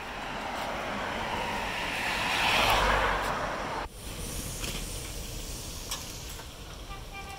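Strong wind gust rushing, swelling to its loudest about three seconds in and dropping away abruptly about a second later, then weaker steady wind with a few faint clicks.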